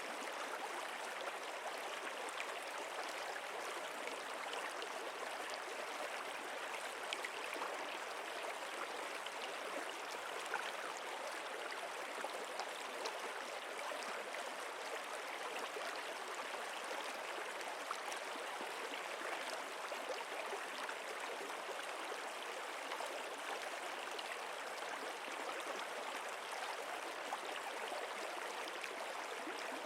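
Stream water running steadily: an even rushing with many small splashes and droplets.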